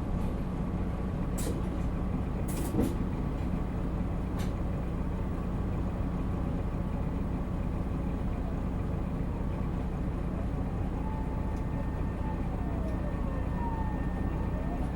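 Isuzu Erga Mio city bus heard from inside the cabin: its diesel engine runs with a steady low drone while under way, with a few short rattles in the first few seconds. From about ten seconds in, a faint whine glides up and down over it.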